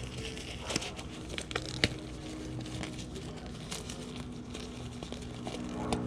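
Rubber gloves being pulled on and handled: crinkling and rustling with scattered small snaps and clicks.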